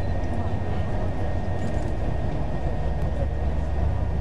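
Steady low rumble of a road vehicle driving along a paved lane, with a faint steady high tone over it.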